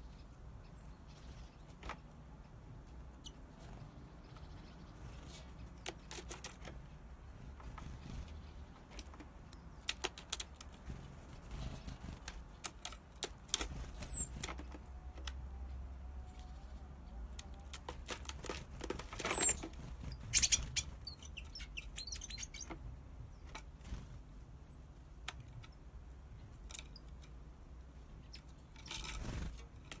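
Great tits landing on and hopping about a plastic-bottle bird trap: scattered light taps and clicks of feet and beaks on the plastic and plywood, several brief wing flutters, and three short high calls.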